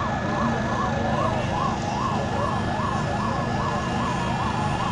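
Emergency vehicle siren sounding a fast up-and-down yelp, about three sweeps a second, the sweeps overlapping, over a steady low rumble.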